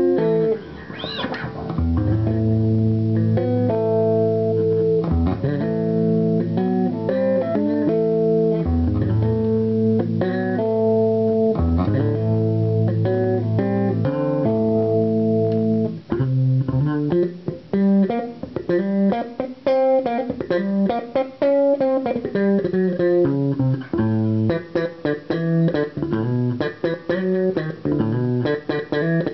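Warwick electric bass guitar played solo. For about the first half it holds long ringing notes and chords, then it moves into a run of quick, short notes with some slides.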